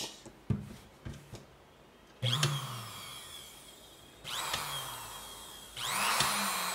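Unloaded sewing-machine universal motor running on 120 V AC, switched by its foot pedal: after a few light clicks, it whirs up suddenly three times, each burst winding down as the motor coasts.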